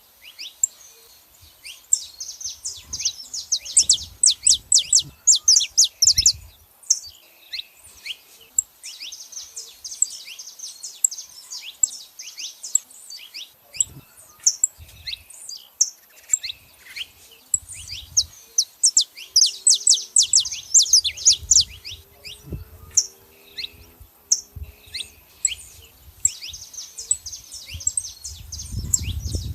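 Saffron finches calling and singing: repeated runs of rapid, sharp, high chirps, each run lasting a few seconds with short pauses between.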